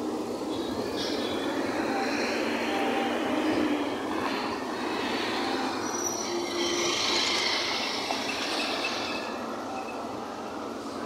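Road traffic on a busy avenue: a steady noise of passing cars and buses, with high squeals on and off, loudest a little past the middle.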